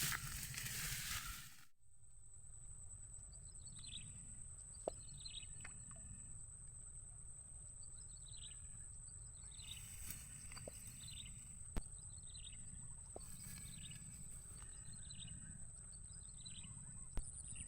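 A burst of noise for the first second and a half, then a bird calling over and over with short descending chirps, roughly one a second in loose groups, over a steady high-pitched whine and a low outdoor rumble. A few sharp clicks are scattered through.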